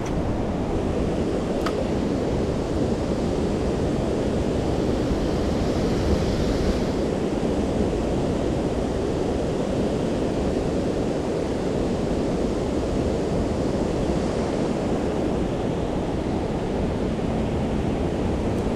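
Steady rushing creek water, an even, unbroken noise.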